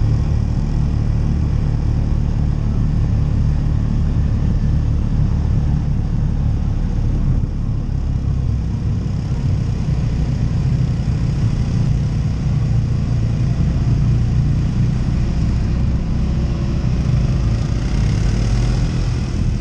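ATV engine running steadily while the machine is ridden, a low rumble that holds fairly even, with a brief dip in loudness about seven seconds in.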